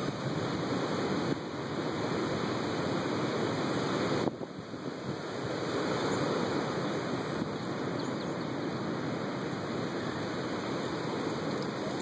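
Wind blowing across the microphone: a steady rushing noise that drops off briefly about four seconds in, then picks up again.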